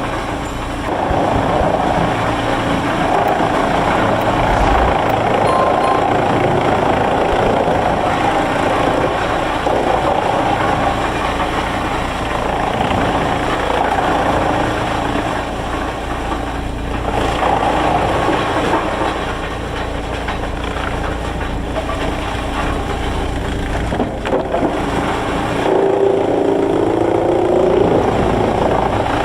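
Heavy sawmill machinery running steadily, a loud engine-like mechanical noise, with a wavering higher tone joining for a couple of seconds near the end.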